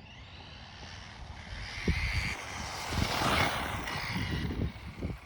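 Electric Kyosho Raider RC buggy running on pavement: its motor and gearbox whine swells as it comes close, loudest about three seconds in, then eases a little. Low thumps come along with it.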